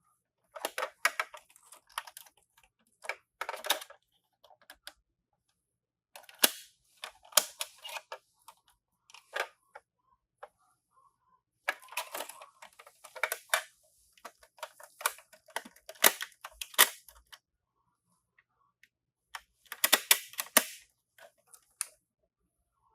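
Die-cast toy minicars clattering and clicking against one another and a hard surface, in about six short bursts of rapid clicks with pauses between them.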